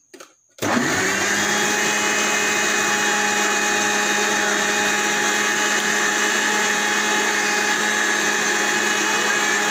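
Panasonic mixer grinder blending chikoo, sugar and milk in its large jar into a thick shake. The motor switches on about half a second in and then runs at a steady, even pitch with a constant hum.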